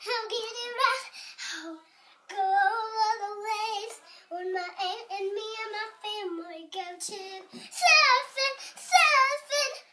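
A young girl singing in a high voice, in short phrases of held, wavering notes with brief gaps between them. Two phrases near the end are the loudest.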